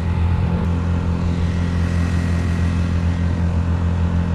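Honda GX50 air-cooled four-stroke 50cc outboard engine running steadily under way, one even engine note with no change in speed.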